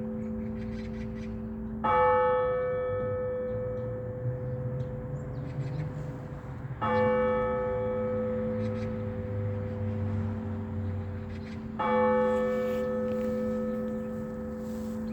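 A single large Orthodox church bell tolled slowly to call worshippers to a service (blagovest). It is struck three times, about five seconds apart, and each stroke rings on until the next.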